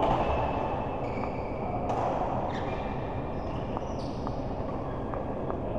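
Doubles game on an indoor court: a few sharp hits and short high squeaks, likely shoes on the court floor, over the steady din of a large hall.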